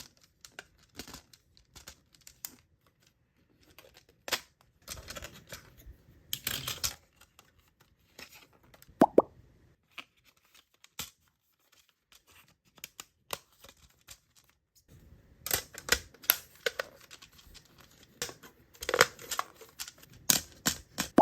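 Hands handling and unpacking small stationery items: scattered taps and clicks, rustling and tearing of packaging, and one sharp pop with a short ring about nine seconds in. The handling grows busier near the end.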